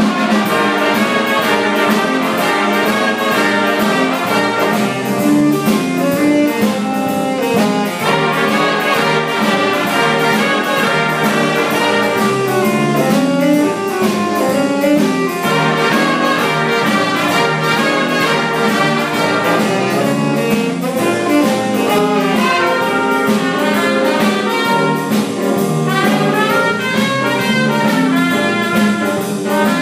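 Music with brass instruments over a steady beat, in a jazz style.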